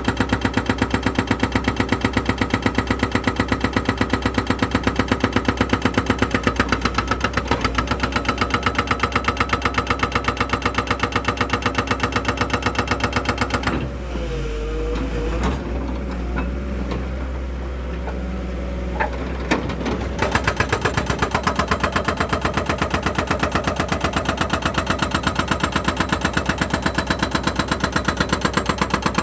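An engine running with a fast, even beat. It drops out for about six seconds midway, leaving a low hum, then comes back.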